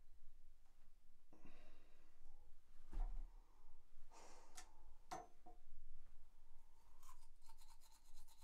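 Toothbrush scrubbing over teeth and a rubber ball gag in short, scratchy strokes, with a few sharp clicks of the brush against the ball. Near the end a fast, even buzzing rhythm starts.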